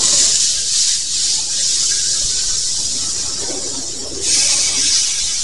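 Seasoned chicken going onto a hot, greased flat griddle and sizzling loudly, with a fresh surge of sizzling about four seconds in.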